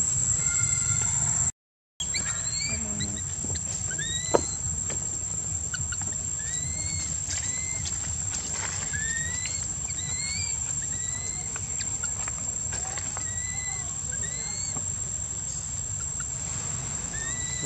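Outdoor insect drone: a steady high-pitched buzz with short rising chirps repeating every second or so, over a low steady rumble. The sound cuts out completely for a moment near the start, and there is a single click a few seconds later.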